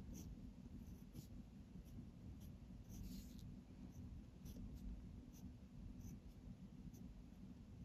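Gel pen writing kanji on paper: a series of short, faint scratches as each stroke is drawn.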